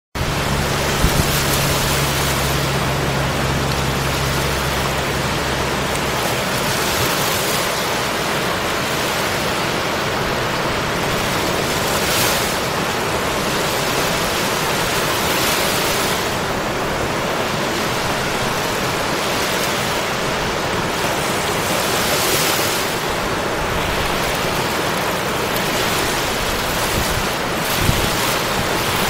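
Steady ocean surf, a continuous hiss that swells as waves wash in every few seconds. A low steady hum lies under it for the first six seconds.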